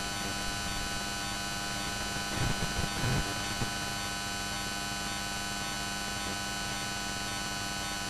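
Steady electrical mains hum with several steady tones over a background hiss, picked up by the recording microphone. There is a faint, brief voice-like murmur about two and a half to three seconds in.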